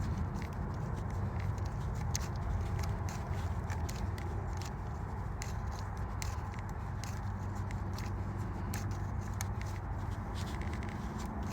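Pontiac G6's 3.5 L V6 engine idling steadily with scattered irregular ticks, still misfiring after a tune-up with new spark plugs, a misfire put down to an oil leak.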